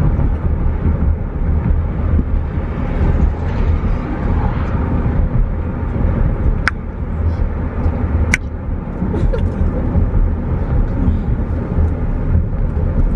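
Steady low rumble of road and engine noise inside a moving car's cabin, with two sharp clicks about seven and eight and a half seconds in.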